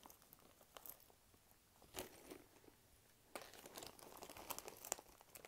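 Faint clicks and light rustling of costume jewelry being handled and sorted in a pile, with a sharper click about two seconds in and a run of small clicks in the second half.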